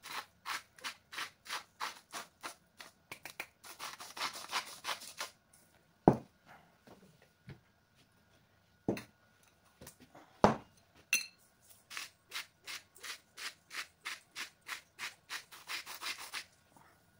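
Hand-twisted spice grinder grinding salt: a fast run of rasping grinds, about four a second, then a pause with a few sharp knocks, then another run of grinds near the end.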